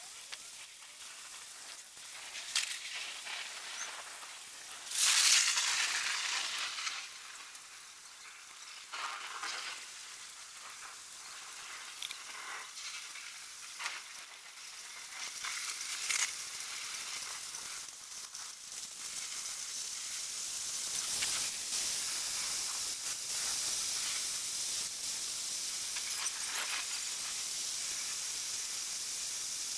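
Storm wind and rain as a storm comes in: a steady high hiss, with a louder burst about five seconds in and the hiss growing stronger from about twenty seconds on.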